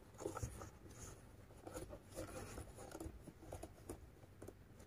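Faint, irregular rustling and scratching of a crochet hook drawing thick Egyptian macramé cord through stitches.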